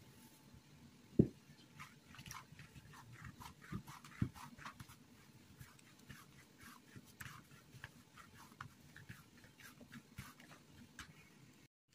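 Hands kneading soft, sticky bread dough: irregular tacky clicks and squelches as the dough is pressed and pulled from the fingers and the surface. There is a single low thump about a second in, and two smaller ones a few seconds later.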